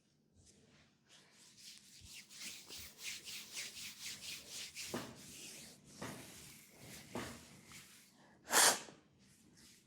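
Hands rubbing quickly over the skin of a leg in a fast massage, a hissing stroke about three times a second. Then come a few heavier slaps and one short, loud slap near the end.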